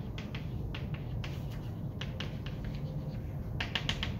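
Chalk tapping and scratching on a blackboard as formulas are written: an irregular series of short, sharp taps, with a quick run of them near the end.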